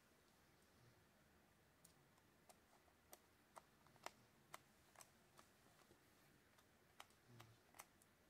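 Faint, sharp metal clicks, about two a second with a short pause partway through, from a small screwdriver working the screws back into the side plate of a Shimano TLD 30 two-speed reel.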